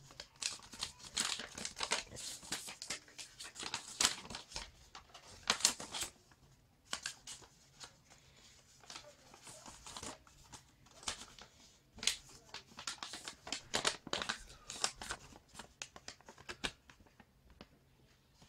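Sheet of printed paper, an invoice, crinkling as it is unfolded and flattened by hand, in irregular bursts of crackling with short pauses between.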